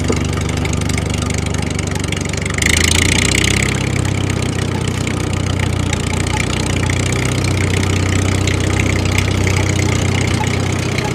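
Engine idling steadily, with a brief hiss about three seconds in.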